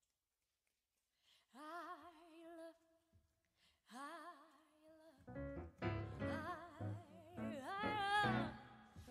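After a near-silent start, a female singer holds two long notes with wide vibrato, unaccompanied. About five seconds in, piano chords come in under her continued singing.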